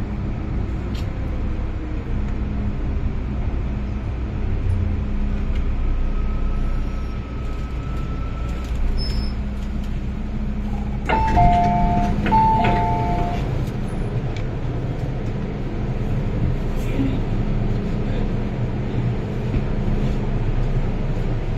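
Metro-Cammell M-Train electric multiple unit of the MTR Island Line running, heard on board: a steady rumble of wheels and motors with a low hum. A little past halfway a brief two-note high-low signal sounds twice.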